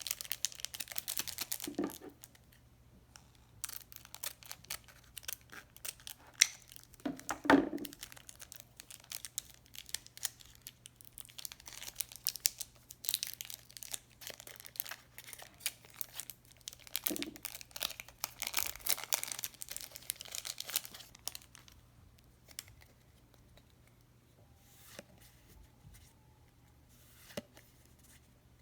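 Packaging being torn open and crinkled by hand, in irregular bursts with a couple of sharper snaps. It turns to quieter handling with a few light clicks near the end.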